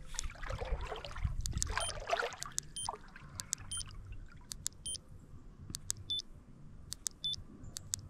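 Soft water sloshing in a shallow creek, then from about three seconds in a string of short, sharp, high-pitched clicks, often in pairs, as the thumb presses the mode button on a Daiwa Limitbreaker IM Z electronic baitcasting reel to change its brake setting.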